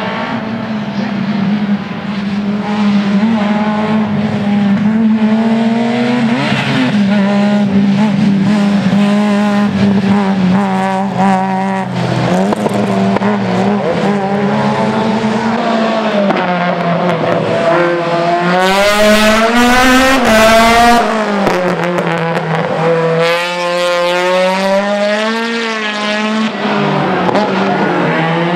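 Race-prepared hatchback engines revving hard, their pitch climbing and dropping over and over with throttle and gear changes. About two-thirds in there is a louder stretch of high revs.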